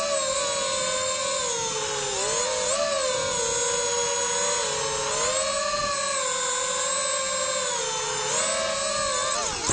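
FPV freestyle quadcopter's brushless motors whining, a stack of pitches rising and falling together as the throttle changes.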